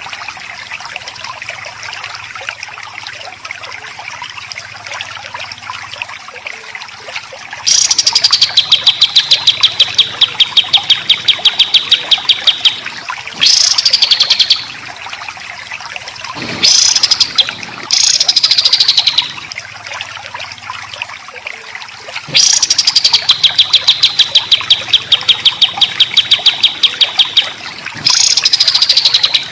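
Songbird masteran recording of dense, harsh 'tembakan' phrases: each opens with a falling note and runs on as a fast, even rattle of about four to five notes a second, lasting from about a second to five seconds, several times over. For the first several seconds only a background chorus of faint chirps is heard.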